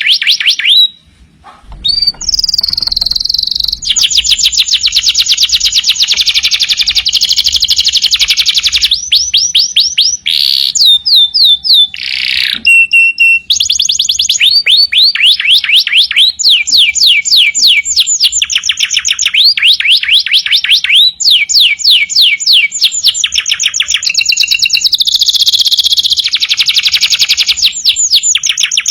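Domestic canary singing without pause in long, rapid trills. Each trill is a fast run of the same falling note repeated many times, and the bird switches to a new trill every second or two. There is a brief break about a second in.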